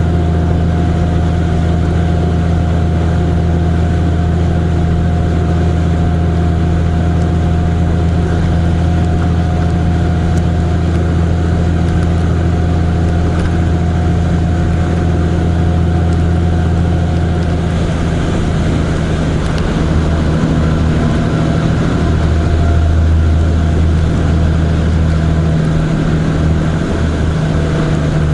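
A vehicle on the move at a steady speed: a constant low engine hum with road and wind noise, its pitch shifting slightly about two-thirds of the way through.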